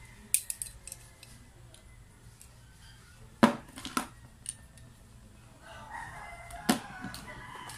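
Sharp clicks and clacks of metal parts, a power-tool armature and pulley knocking against a steel vernier caliper as they are handled and measured, a few light ones just after the start and louder ones in the middle and near the end.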